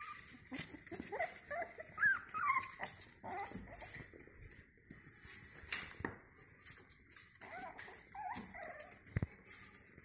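Five-week-old Jack Russell Terrier puppies whimpering, with many short high squeaks that bend up and down in pitch. A few sharp clicks come through, about two, six and nine seconds in.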